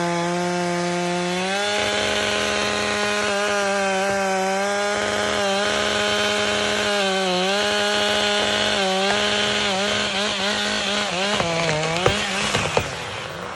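Two-stroke chainsaw running at high revs and cutting wood, its engine note dipping briefly several times as the chain loads in the cut. It dips repeatedly near the end, then drops off.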